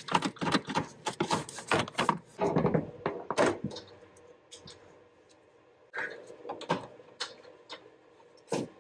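Rapid clicking and rattling of plastic hose connector clips and corrugated flex tubes being worked loose from a bracket by hand. This lasts about three and a half seconds and is followed by a few fainter clicks and rustles.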